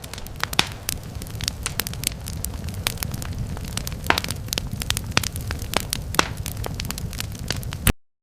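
Fire crackling and popping irregularly over a steady low rumble, cutting off suddenly near the end.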